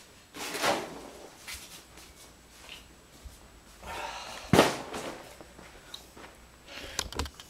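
A door being shut: a rustling sweep, then a second swing that ends in one sharp slam about halfway through. A few light clicks follow near the end.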